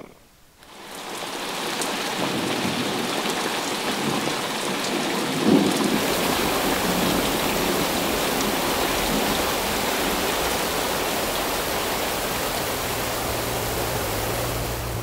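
Heavy rain with thunder, fading in over the first second or two. A thunderclap comes about five and a half seconds in, after which a low rumble sits under the steady rain.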